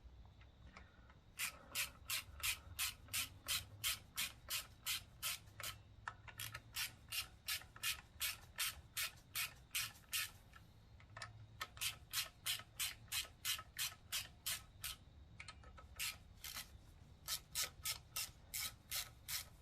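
Hand ratchet being worked back and forth on a bolt, each return swing giving a short rasping burst of pawl clicks, about three a second, with two brief pauses.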